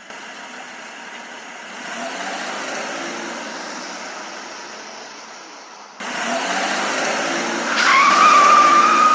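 Car sound effects: a car running that swells about two seconds in and fades away, then cuts suddenly at about six seconds to a louder run ending in a long tyre squeal from about eight seconds.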